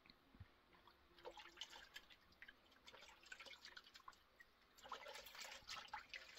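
Faint, scattered drips and small splashes of water from a hand dipped in a small bowl of water, coming thicker near the end.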